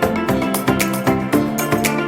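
Background music with a steady beat and plucked-guitar-like notes.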